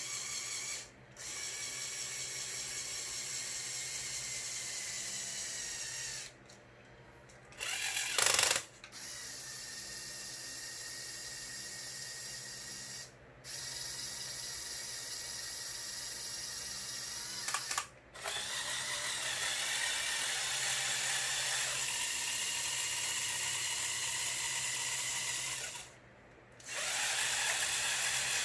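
Small electric motors of a motorized Lego Technic excavator model whirring through their plastic gear trains, stopping and starting again several times. There is a sharp, loud clack about eight seconds in.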